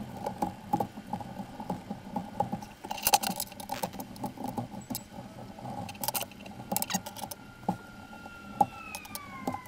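Breakaway PLA support material being picked and scraped off a 3D-printed part by fingers and a flat tool: irregular small plastic clicks, cracks and scratches.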